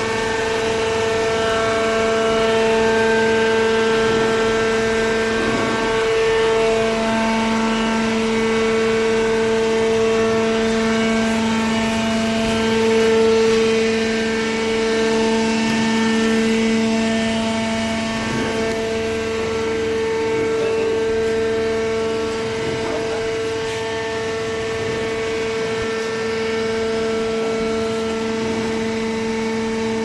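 Cardboard baler's hydraulic power unit running, its electric motor and pump giving a loud, steady hum with a pitched whine.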